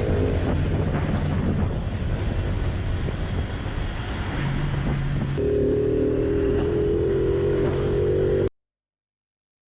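Honda Cub motorcycle's small single-cylinder engine running while riding, with wind rushing over the microphone. About five seconds in, the engine note steps up and grows stronger. It cuts off abruptly near the end.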